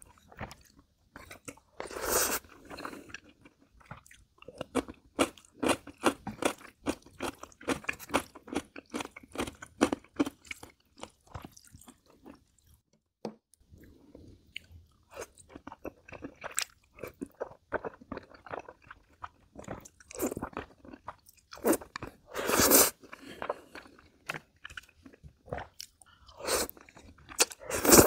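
Mukbang eating sounds: dense chewing and biting of jjajangmyeon noodles and side dishes, with a few longer slurps of noodles, one near the start and several in the last few seconds.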